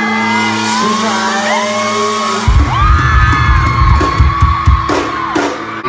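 Live pop-punk band playing in an arena, heard from the crowd, with fans screaming and singing along. A held chord gives way to drums and bass kicking in about two and a half seconds in.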